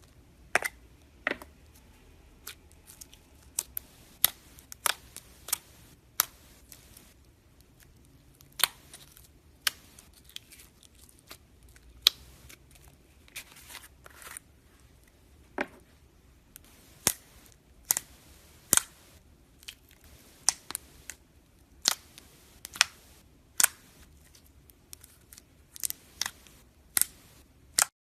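Slime being pressed and worked by hand, giving sharp, separate pops and clicks at an irregular pace of about one or two a second.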